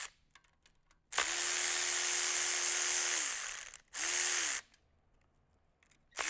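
Electric ratchet spinning out bolts in short bursts while the engine's timing cover is taken off. It stops at the start, then runs for about two seconds and winds down, runs briefly again around the middle, and starts up once more near the end, with faint clicks of metal in between.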